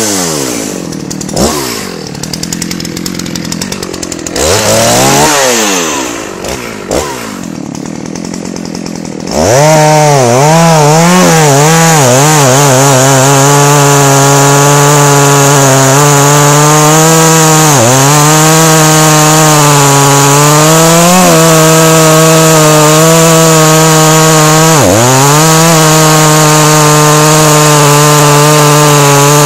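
Dolmar 7900 two-stroke chainsaw revving up and down in short blips for about the first nine seconds. Then it is held at full throttle, cutting into the base of a thick, very hard beech trunk. Twice near the end the engine note dips briefly as the wood loads the saw.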